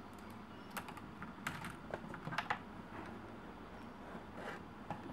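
Laptop keyboard being pried out of its frame and lifted: sharp plastic clicks and rattling keys, clustered about a second in, with a couple more near the end.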